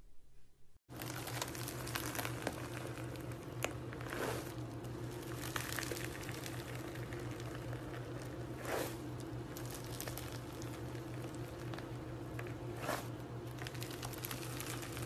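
From about a second in, a hand squeezing and pressing into crunchy slime packed with small foam beads and chopped pieces, giving a steady stream of fine crackling and popping with a few louder snaps, over a steady low hum.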